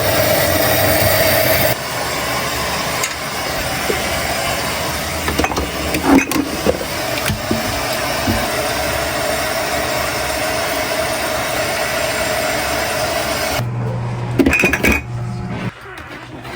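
Loud steady whirring of a small motor-driven machine with a steady hum. It cuts off suddenly near the end.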